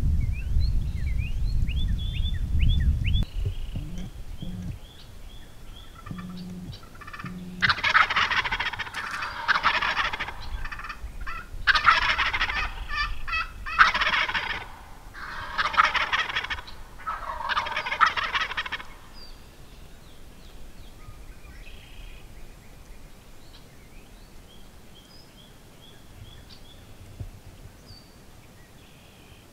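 Wild turkey gobbling: five loud gobbles in quick succession, spaced about two seconds apart, after a low rumble in the first few seconds. Faint songbird chirps come before and after the gobbles.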